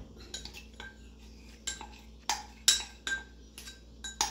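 Kitchen utensils and dishes clinking and knocking against one another: about a dozen irregular light strikes, a few of them ringing briefly.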